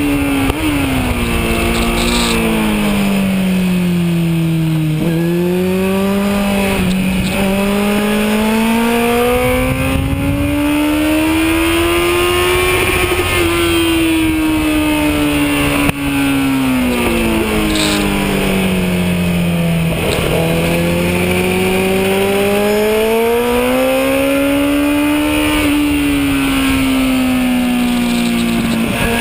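Kawasaki Z1000 inline-four engine at racing speed, heard from onboard with wind rushing over the bike. The engine note falls as the bike slows for corners and climbs again as it pulls out, twice over, dropping again near the end.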